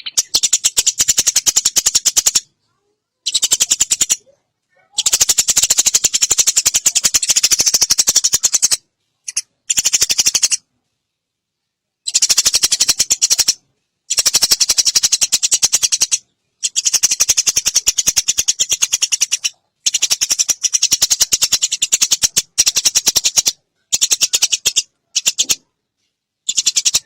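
Eurasian tree sparrow's long rattling chatter, a very fast run of dry, high ticking notes, in loud runs of one to four seconds broken by short gaps of dead silence.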